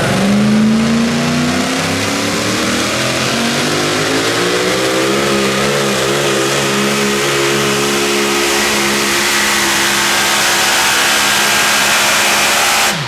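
Super modified four-wheel-drive pulling truck's engine at full throttle on a pull. Its pitch climbs over the first few seconds, wavers briefly about five seconds in, then holds high and steady.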